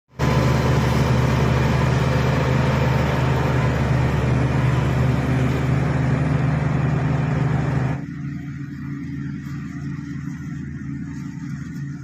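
Shantui SD16 crawler bulldozer's diesel engine running steadily under load as the blade pushes soil, loud and close. About eight seconds in the sound cuts abruptly to a quieter, lower engine drone from the same machine working farther off.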